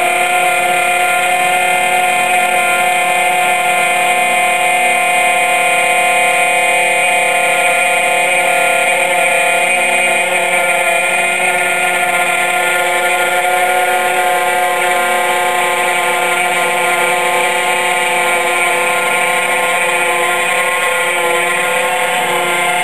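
CNC gantry milling machine's spindle driving an end mill through stainless steel, a steady whine of several high tones over cutting noise.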